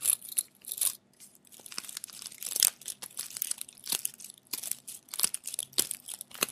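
Fingertips scratching and rubbing close against the microphone in an ASMR scalp massage: a run of irregular, crisp crackles and scratches.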